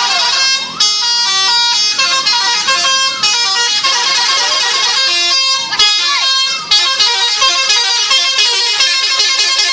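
Telolet horn of a Po Haryanto bus playing a multi-note melody, its pitched notes stepping quickly from one to the next with short breaks about a second in and around six seconds in. In the last few seconds the notes repeat faster.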